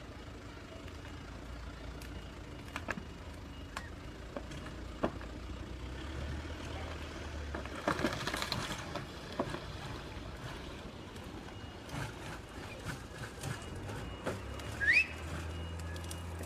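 A vehicle engine running low and steady under scattered knocks and clicks, with a rushing scrape about eight seconds in and a short rising squeal near fifteen seconds. After the squeal the engine note grows stronger.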